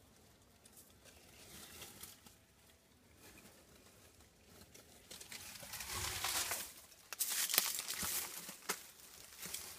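Rustling and crackling of wet dead leaves and debris being stirred, with a few sharp clicks. It starts about five seconds in and is loudest near the end.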